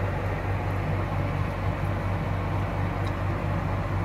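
Steady low hum under a constant wash of noise.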